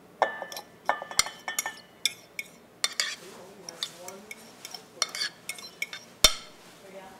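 A utensil clinking and scraping against a bowl as dumpling filling is mixed: irregular taps, a few ringing briefly in the first two seconds, and one sharper, heavier knock about six seconds in.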